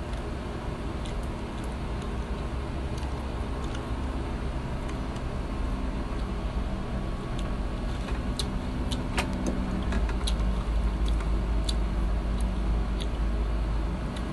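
A steady low background rumble that swells about nine seconds in, with scattered small sharp clicks of chewing and lip-smacking from a man eating rice and meat by hand.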